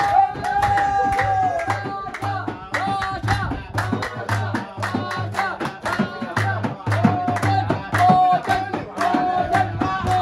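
Folk music with a held, wavering melody line over a steady beat of hand clapping and frame drum.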